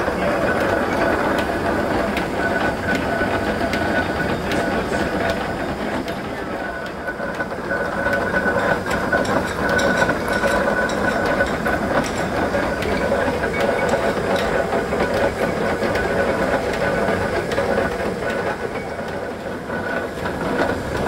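Large antique J. J. McCabe lathe running under power, a steady mechanical clatter of gearing with a continuous whine.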